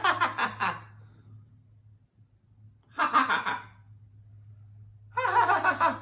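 A macaw mimicking human laughter: three short laugh-like bouts of rapid pulsed syllables, one at the start, one about three seconds in and one near the end.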